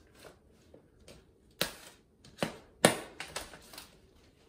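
Packing tape and plastic wrap being picked and peeled off a telescopic aluminium ladder: a run of sharp clicks and crackles, with three louder snaps between about one and a half and three seconds in, the last one the loudest.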